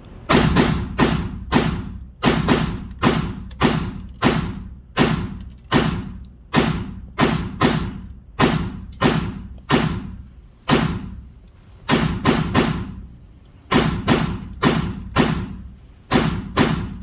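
FN PS90 carbine firing 5.7×28mm rounds semi-automatically: about thirty sharp shots, roughly two a second with a few brief pauses, until the magazine runs empty.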